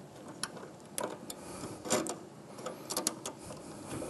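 The pressure arm on a CK Worldwide WF-5 TIG wire feeder's drive rollers being clamped down by hand and its spring tension knob turned: light, irregular metal clicks in three small groups about a second apart.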